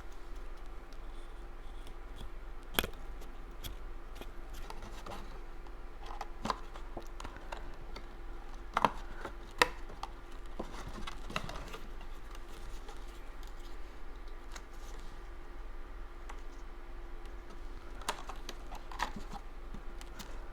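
Cardstock paper being handled and rubbed down: light rustling and scraping with scattered small taps and clicks, over a steady low hum.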